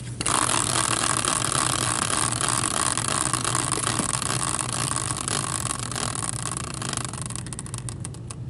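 A hand-spun caster-type prize wheel whirring on its axle after a hard spin, slowly fading as it slows down, with a few light ticks near the end.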